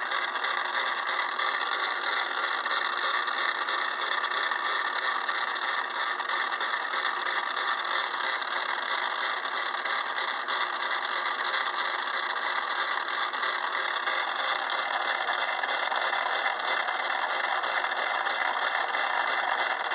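Craftsman 6-inch metal lathe running with a 3/8-inch end mill in the spindle facing a steel workpiece held in the milling attachment vise, the cross slide moved by a power feed motor. A steady, unchanging machining noise.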